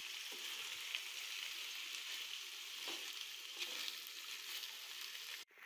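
Chopped beef and onions sizzling steadily in hot oil in a frying pan, stirred now and then with a wooden spoon. The sizzle cuts off suddenly near the end.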